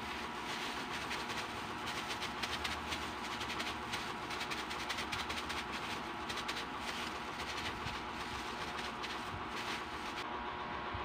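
Plastic-covered hands working and shaping a wet, minced malunggay patty mixture: a dense crackle of plastic with wet squishing, over a steady background hum. The crackling stops shortly before the end.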